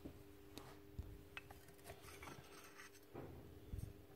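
Faint scattered clicks, light knocks and rubbing as the stripped-down nail gun's metal parts, its piston and cylinder, are handled, over a faint steady hum.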